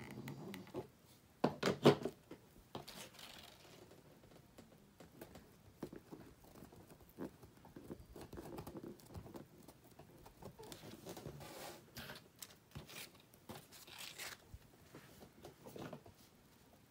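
Ribbon and floral wire handled on a cutting mat: light rustling, taps and scrapes, with a short louder clatter about two seconds in.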